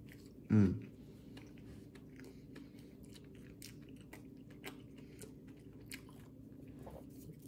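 A person chewing a mouthful of sugar-coated donut: many small, soft mouth clicks. There is a short hummed vocal sound about half a second in.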